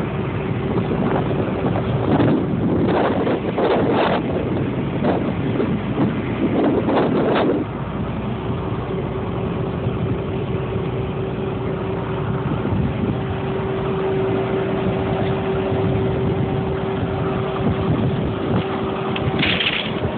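Wind rushing over a phone microphone in gusts, strongest in the first several seconds and again near the end, over a steady low hum.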